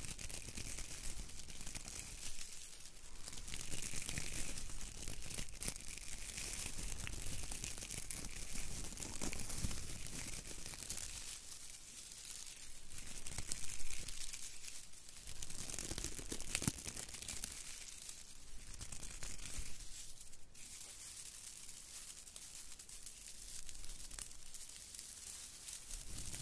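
Fresh pine branches rustling as their needles are brushed and rubbed right against the microphones: a crisp, scratchy rustle that swells and fades with each stroke, loudest about halfway through.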